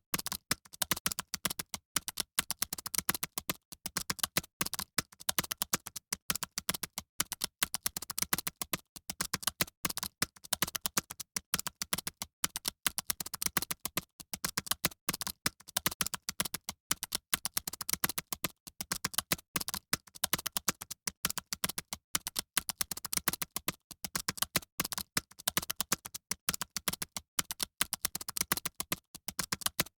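Fast keyboard typing: a dense, continuous clatter of key clicks, many per second, without pauses.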